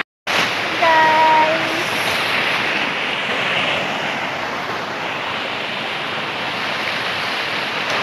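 Waterfall rushing over rocks, a steady noise of pouring water with no breaks. A short flat voice-like hum sounds about a second in.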